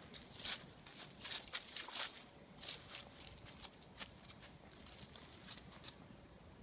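Footsteps crunching through dry fallen leaves on grass: irregular crackling steps that stop about six seconds in.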